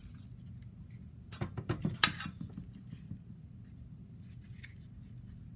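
Light clicks and taps of a crisp fried taco shell and a steel mixing bowl being handled while the next taco is filled with salmon, a short flurry about a second and a half in. Underneath, a steady low hum.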